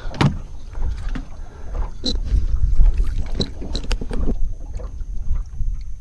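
Scattered knocks and clicks of hands and gear against a small boat's deck and hatch, over a low irregular rumble of wind and water, with a faint steady high whine behind them.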